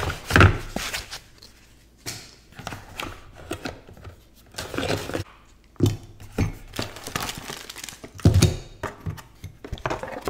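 Packaging being handled: a cardboard box and foam padding opened and moved, with rustling of a plastic-bagged parts pack and a few thunks of items set on a table, the heaviest about half a second in and about eight seconds in.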